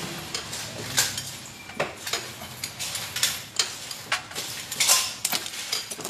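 Irregular metallic clicks and clinks of hand tools working on motorcycle wiring, as wires are cut and handled. There is a cluster of louder clicks about five seconds in.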